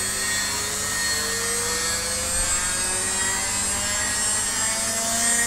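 CNC router spindle running free at high speed as it comes up to about 14,000 RPM, not yet cutting: a steady high whine with fainter tones slowly rising in pitch.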